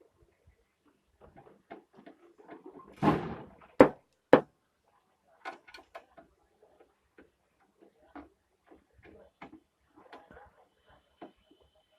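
Clicks, knocks and small rattles of an inverter's metal casing and tools being handled while it is taken apart. A short noisy scrape about three seconds in is followed by two sharp knocks, the loudest sounds.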